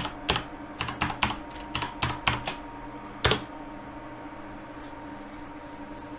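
Computer keyboard keys being typed, about eight quick keystrokes, then one louder keystroke a little after three seconds in. A steady hum runs underneath.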